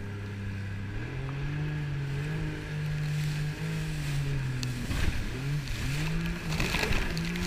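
Jet ski engine running at speed. About a second in it steps up in pitch and holds steady, then from about five seconds its revs rise and fall repeatedly. Water spray hisses and splashes near the end.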